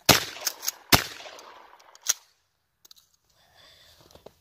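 12-gauge shotgun loaded with number 4 shot, fired twice less than a second apart, each blast trailing off in a reverberant tail. A few lighter sharp clicks fall between and after the shots.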